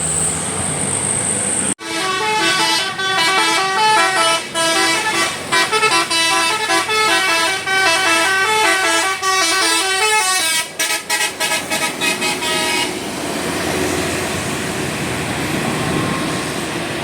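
Basuri telolet multi-tone bus horn playing a tune of quick stepping notes, ending in a fast chopped run of notes about thirteen seconds in. After it stops, steady vehicle and road noise.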